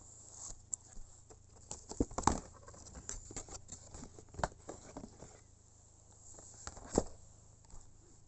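Handling of a DVD box set and its plastic wrapping: scattered rustling and clicking of plastic DVD cases and packaging, with a few sharper knocks about two, four and a half and seven seconds in.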